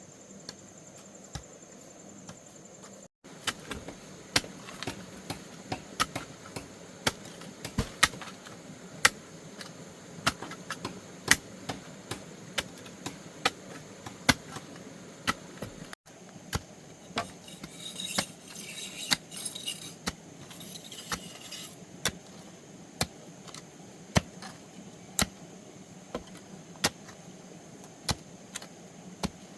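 Irregular sharp strikes of a metal digging tool into the ground, about one or two a second, with a spell of scraping about two-thirds of the way through. A faint steady insect drone runs underneath.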